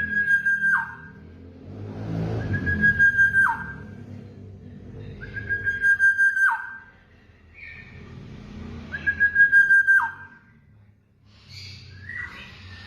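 A bird's whistled call repeated four times, each note held steady for about a second and then dropping sharply in pitch. A lower, pulsing sound comes in the gaps between the calls.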